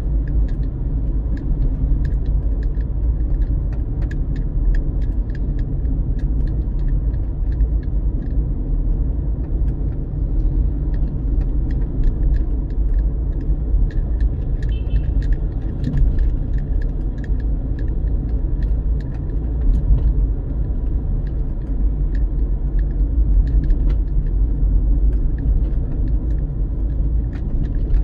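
Car being driven, heard from inside the cabin: a steady low road and engine rumble with many small rattling clicks scattered through it.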